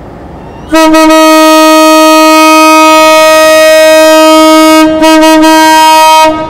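Horn of the CKD8G diesel locomotive sounding as its departure signal: one long, loud blast of about four seconds, a brief break, then a short blast.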